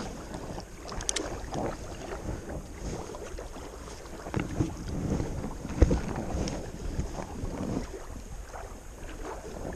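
Wind buffeting the microphone over a steady wash of lapping water, with a spinning rod and reel being handled for a cast: a sharp click about a second in and a thump near six seconds.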